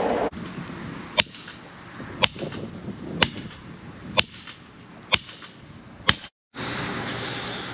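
Hammer striking the top of a metal pilot rod to drive it into the ground and make a pilot hole for a no-dig fence stake. Six sharp metallic strikes about a second apart, each with a brief ring.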